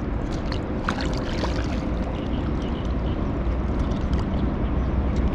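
Water lapping and gurgling against shoreline rocks, over a steady low rumble, with a few faint clicks.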